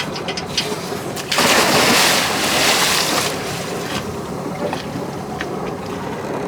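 A person jumping into the sea, a sudden loud splash about a second and a half in, then water rushing for about two seconds. A few light knocks come just before it.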